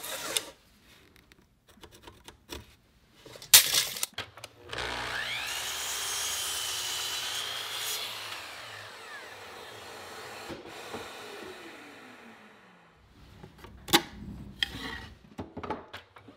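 A Festool sliding miter saw starts up with a rising whine and cuts through a pine 2x4. Its motor then winds down with a slowly falling tone. A sharp knock comes before the saw starts, and a few more knocks follow near the end as the wood is handled.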